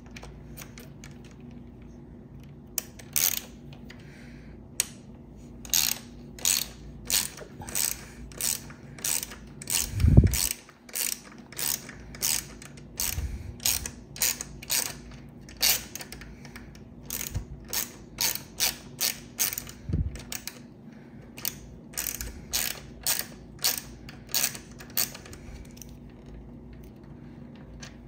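Ratcheting T-handle hex driver clicking, about two clicks a second in uneven runs, as it backs out a mounting bolt of a TRP mechanical disc brake caliper, with one dull knock partway through.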